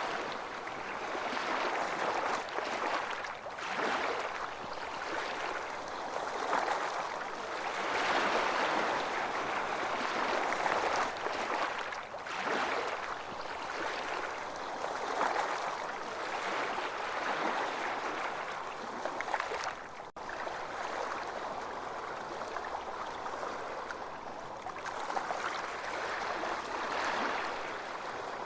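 Ocean waves washing onto a beach: a continuous rush of surf that swells and eases every few seconds, with a momentary break in the sound about twenty seconds in.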